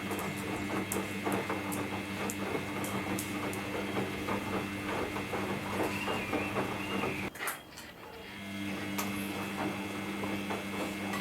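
Samsung EcoBubble front-load washing machine running a cotton wash: the drum motor drives the tumbling load with a steady hum and a higher whine, over faint clicks and swishes from the clothes and water. About two-thirds of the way through the motor stops for about a second, then spins up again, as the drum pauses and changes direction.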